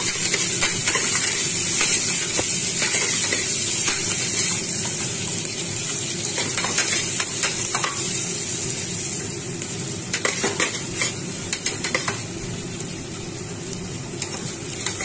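Chopped onions and green chillies sizzling in hot oil in a pressure cooker, stirred with a steel ladle that scrapes and clinks against the pot. The steady sizzle runs under the stirring, with a run of sharper ladle knocks about ten seconds in.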